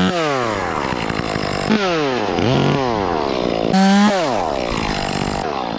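Chainsaw revved hard three times, its engine pitch sliding down after each burst of throttle.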